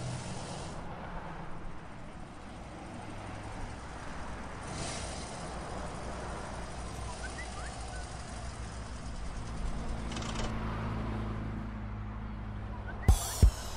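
Motorcycle engine running steadily at low speed with street traffic noise around it. Near the end, two heavy bass-drum beats as music comes in.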